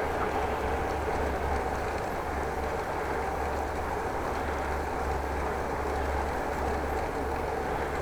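Steady wind and tyre noise of a bicycle ride on an action camera's microphone, with an even low hum underneath.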